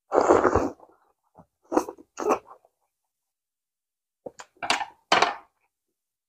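Close-miked mouth sounds of eating soft steamed rice rolls (bánh cuốn): a loud bite as a roll goes into the mouth just after the start, then a few short, separate chewing and lip sounds with silent gaps between them.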